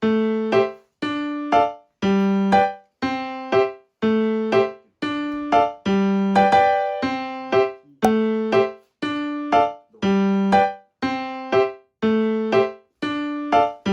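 Background music: a bouncy electric piano pattern, short plucked-sounding chords repeating about twice a second.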